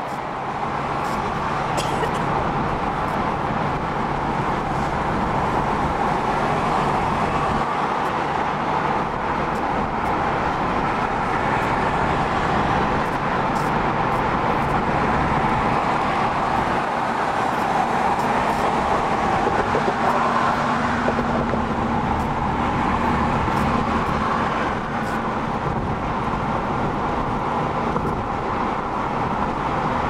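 Steady road noise of a car cruising at freeway speed, heard from inside the cabin: a constant rush of tyres, wind and engine with no break.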